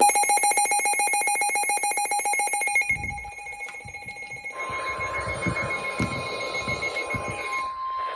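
Weather alert radio sounding an electronic emergency alarm. A loud, rapidly pulsing beep lasts about three seconds. From about four and a half seconds in comes a steady single tone over static: the warning alarm tone that announces a severe thunderstorm warning broadcast.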